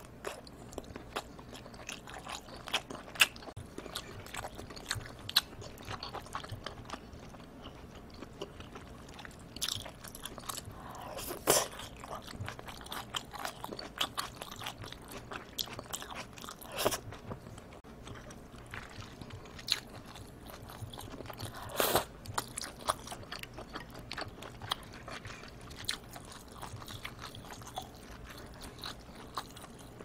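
Close-miked eating of seafood jjamppong: steady wet chewing and biting with many small mouth clicks, broken by a few louder bites.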